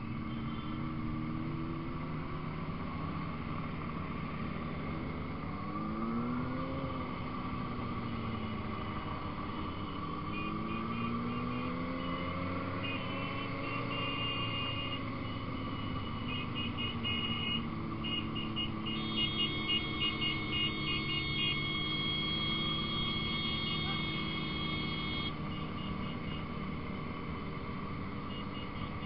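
Motorcycle engine running on the move, its pitch rising and falling as the rider accelerates and eases off, over road and wind noise. Steady high-pitched tones come and go through the middle and latter part.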